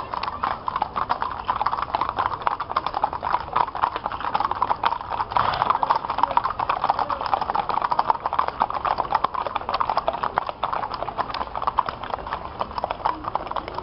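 Many horses' hooves clip-clopping on a paved street, the steps of a mounted column overlapping in a dense, irregular clatter.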